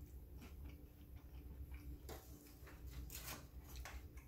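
Faint chewing of a breaded chicken nugget: soft, irregular mouth clicks and crunches.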